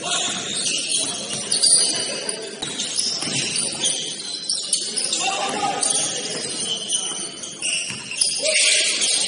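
Basketball shoes squeaking on a gym floor: many short, high squeaks overlapping one another, thickest near the end, over voices on the court.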